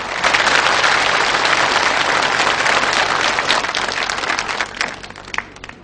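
Audience applause: many hands clapping together, swelling just after the start and dying away near the end.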